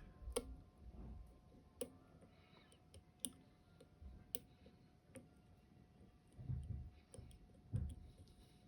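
Faint, irregular metallic clicks of a pick working the pins of a Dom IX 5kg dimple lock under tension, a click every second or so, with a couple of duller low knocks near the end. The lock's pins are worn, so the feedback from the pins is muted.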